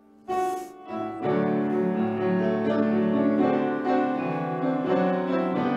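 Piano playing chords as the introduction to a congregational gospel song: a brief chord just after the start, then steady playing from about a second in.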